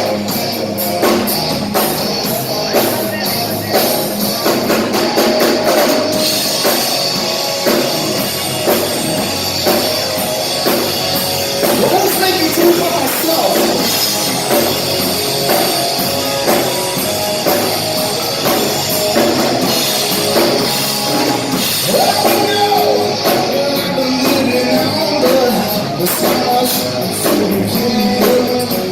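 Live rock band playing with a singer over drums and electric instruments.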